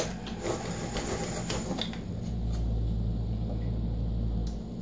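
A hand-cranked drill boring into wood: a rasping whir with quick clicks from the gears and bit. About two seconds in, this gives way to a steady low hum that stops shortly before the end.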